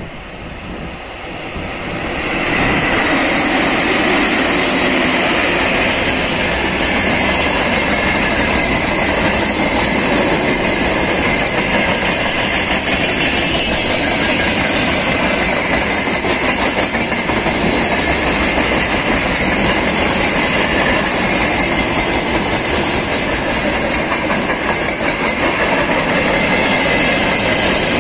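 Freight train hauled by a VL11 electric locomotive arriving and then rolling past close by, with steel wheels running over the rails of loaded gondolas and tank cars. It grows louder over the first two or three seconds as the locomotive reaches the spot, then holds as a steady loud rumble and clatter of passing wagons.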